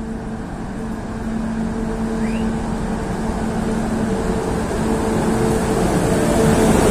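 Class 50 diesel locomotive with its English Electric V16 diesel engine, drawing in at low speed with a steady engine drone that grows louder as it approaches and passes.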